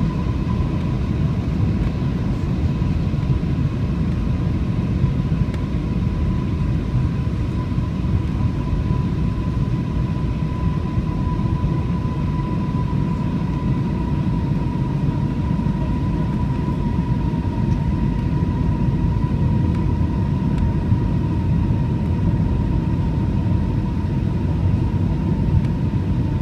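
Airliner cabin noise on a landing approach: a steady low rumble of jet engines and airflow, with a thin whine that sinks slightly in pitch.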